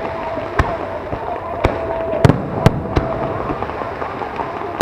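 Fireworks shells bursting over the sea: about six sharp bangs, unevenly spaced, over a continuous din of crackle and rumble.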